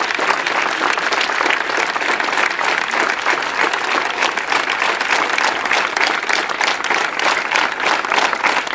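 A crowd applauding steadily: many hands clapping at once in a dense, continuous patter.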